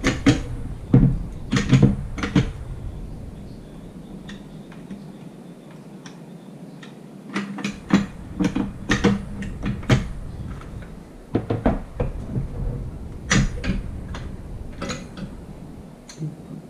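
Metal clicks and knocks of a Molot Vepr-12 shotgun's parts being handled and fitted together during reassembly, coming in three bunches with quieter handling between.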